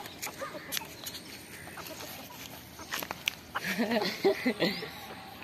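White Aseel rooster clucking in a short run of calls about two-thirds of the way in. Before that there are only faint outdoor sounds and a few sharp clicks.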